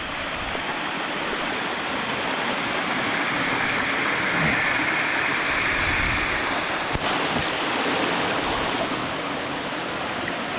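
Snowmelt stream running over rocks and gravel, a steady rush of water.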